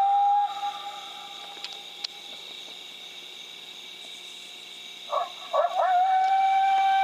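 Coyote howls: one long howl holding a steady pitch ends about half a second in. About five seconds in come a few short yips, then a second long howl at the same steady pitch. A steady high hum sits underneath.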